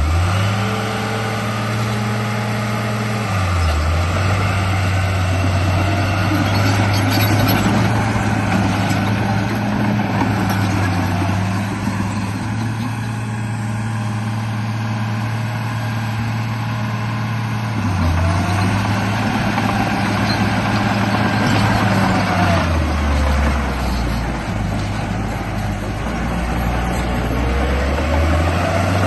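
Radio-controlled bulldozer running, with a steady engine-like hum that steps down in pitch about three seconds in and shifts a few more times. A motor whine rises and falls in the second half.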